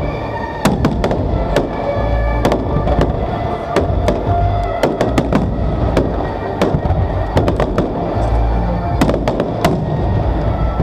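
Fireworks display: aerial shells bursting with many sharp bangs and crackles and several deep booms, with music playing alongside.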